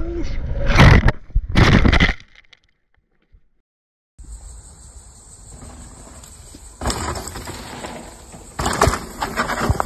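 Mountain bike crash: two loud crashing impacts of bike and rider hitting the ground about a second in and near two seconds, followed by a short silent gap. Then trail noise with a burst of loud impacts near the end as a second mountain bike lands a jump over rocks and goes down.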